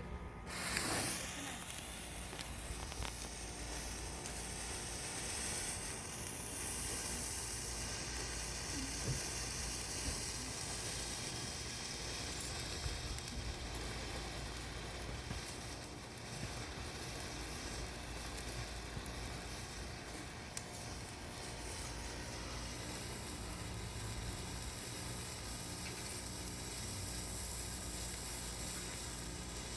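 Winda Hanabi sparkler burning with a steady hiss and sizzle. It flares up about a second in as it catches.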